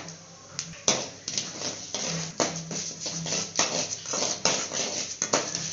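Mustard seeds spluttering in hot oil in a kadai: dense, irregular sharp pops and crackles, several a second, as the tempering cooks.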